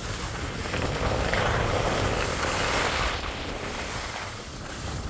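Skis sliding and scraping over packed snow, with wind rumbling on the microphone; the scraping swells for about two seconds early in the first half, then eases.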